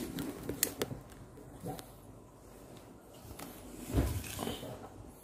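A heavy Narada VRLA battery being handled and shifted on a tiled floor: a few sharp clicks under a second in, then a dull thump about four seconds in as the battery is pushed.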